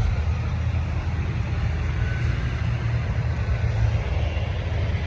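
Steady low drone of an idling vehicle engine, even and unchanging.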